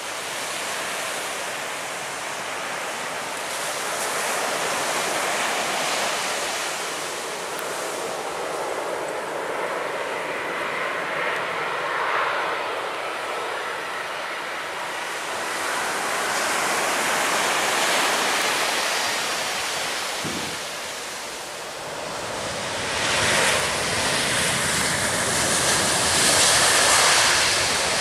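Airbus A330 airliner's jet engines on final approach and landing, a steady rushing noise with a faint whine, mixed with wind on the microphone and surf. The engine noise grows louder in the last few seconds as the jet rolls out on the runway.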